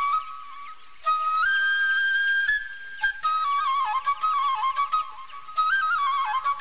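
Background music: a single flute playing a melody of long held notes broken by quick ornamental turns.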